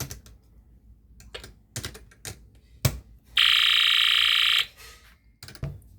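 Snap Circuits speaker driven by the Space War sound module, giving a loud, steady electronic alarm-like buzz for just over a second about halfway through. Before and after it come several sharp clicks of plastic snap pieces being handled.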